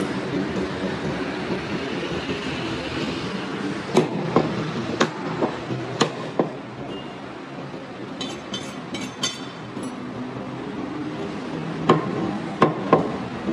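Butcher's blade chopping goat ribs on a wooden chopping block: several sharp knocks, unevenly spaced, with a quick run of light clicks about two thirds of the way through, over a steady background rumble.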